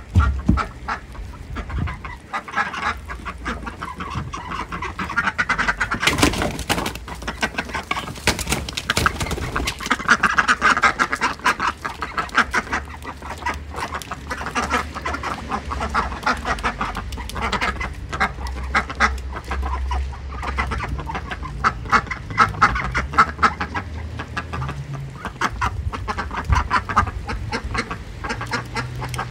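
A flock of Indian Runner ducks quacking almost without pause, with chickens calling among them.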